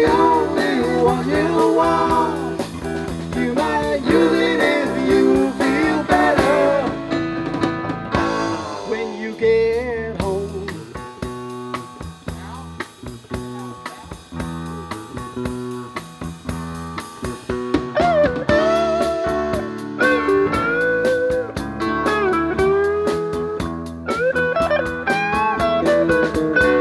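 Live rock band playing an instrumental section: an electric guitar lead with bending notes over electric bass and drum kit with cymbals. The band drops to a quieter stretch in the middle and then builds back up.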